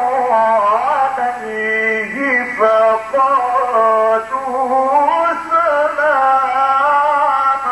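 A male Qur'an reciter chanting in long, ornamented held notes whose pitch wavers and bends, with two short breaks.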